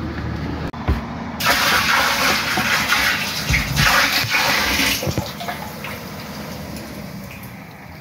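Water poured from a bucket into a plastic drinking-water tank, dosing a poultry drinker system with vaccine. A loud splashing gush starts about a second and a half in and lasts about three and a half seconds, then the water sloshes and settles.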